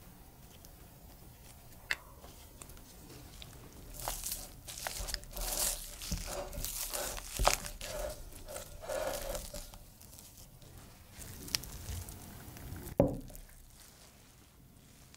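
Food being worked in a glass mixing bowl: a few seconds of irregular crinkling, scraping and squishing noises starting about four seconds in, then a single sharp knock about two seconds before the end.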